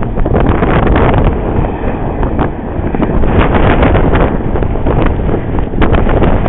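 Wind buffeting the camera's microphone: a loud, continuous low rumble broken by frequent gusty crackles.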